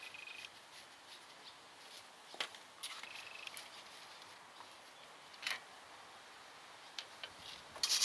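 Faint, scattered clicks and light knocks, a few seconds apart, from hand work on a car's front brake assembly.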